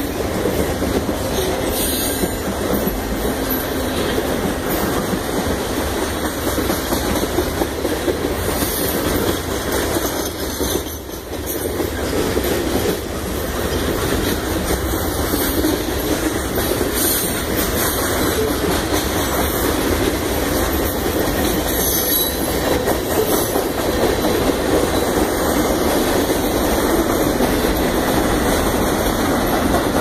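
Freight cars of a passing train rolling by at close range: steady noise of steel wheels running on the rails, briefly quieter about eleven seconds in.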